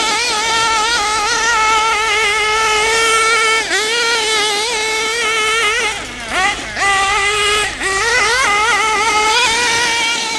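Kyosho MP9 nitro buggy's KE21 two-stroke nitro engine, fitted with a new exhaust, running at high revs as the buggy is driven: a steady high-pitched whine that wavers, and a few times in the second half drops briefly as the throttle is lifted and sweeps back up.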